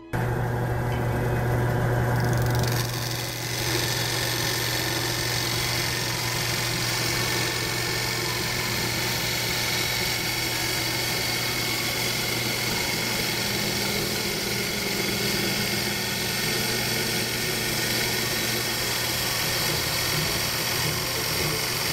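Wood lathe running with a steady hum as a turning tool cuts into the spinning oak spurtle near the headstock, a hiss of cutting coming in about three seconds in.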